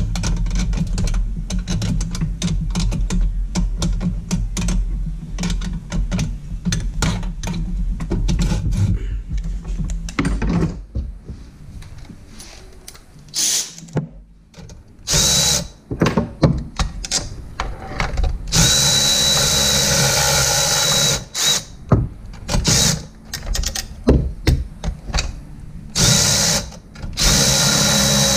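A Milwaukee cordless electric ratchet whirs in short bursts from about fifteen seconds in, then in longer runs, as it undoes bolts on a Sea-Doo 951 engine. For roughly the first ten seconds a rapid steady mechanical clatter runs over a low rumble.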